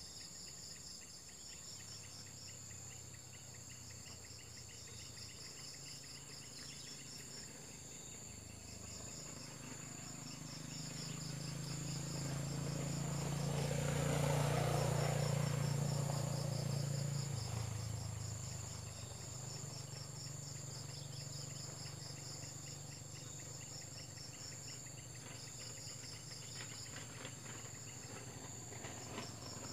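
A chorus of crickets or similar insects singing steadily, with a fast even pulsing high in pitch. Near the middle, a low engine hum from a passing vehicle swells for several seconds and fades, becoming the loudest sound before dying away.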